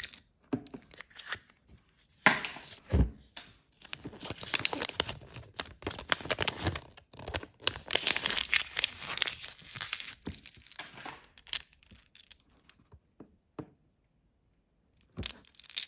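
Close-miked crinkling and rustling of the small paper instruction leaflet from a Kinder egg toy capsule as it is unfolded and handled, lasting several seconds and full of sharp crackles. There are sharp clicks of the plastic capsule and toy at the start and a few more near the end.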